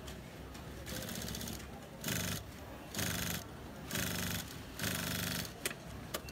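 Juki LU-2810-7 industrial walking-foot lockstitch sewing machine stitching black leatherette in short runs: a fainter run about a second in, then four runs of about half a second each, then a few sharp clicks near the end. It is test-sewing to check the horizontal feed cam timing.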